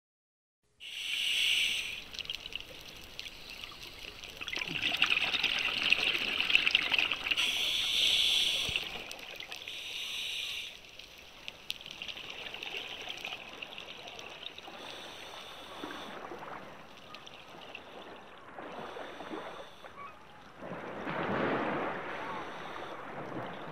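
Bubbling, rushing water heard underwater. It starts about a second in and swells in several louder surges, the strongest early on and again near the end.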